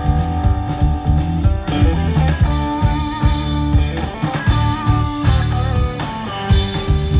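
Live rock band playing with amplified electric guitars and a drum kit: held guitar notes and wavering, bending lead lines over steady drum hits.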